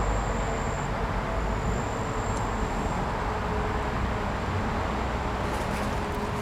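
Steady outdoor background noise with a low rumble and a faint high steady tone.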